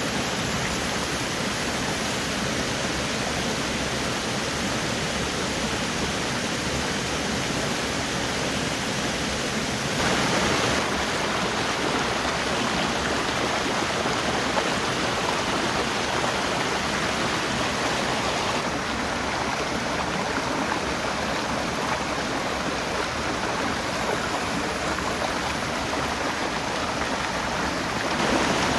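Steady, even rush of water, starting suddenly and holding with only small shifts in level.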